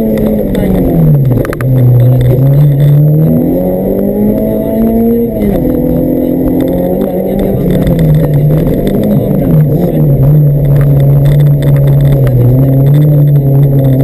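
Honda Civic rally car's B16B 1.6-litre VTEC four-cylinder engine driven hard, heard from inside the cabin: the revs fall sharply about a second in, climb steadily for a few seconds, drop suddenly at a gear change about five seconds in, then run lower with brief dips and rises.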